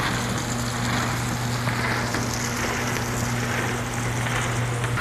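Cleated incline conveyor running with a steady motor hum, and roasted peanuts pouring onto it and rattling as they ride up the belt in a dense hiss.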